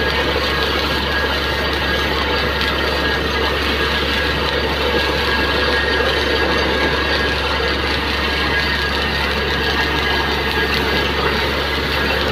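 Truck-mounted borewell drilling rig's engine running steadily under load, with a constant low hum, while its compressed air blows water and slurry up out of the borewell casing.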